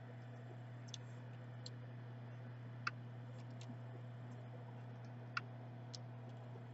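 Faint, scattered light clicks and ticks from soldering work on a laptop DC jack's pins, over a steady low electrical hum.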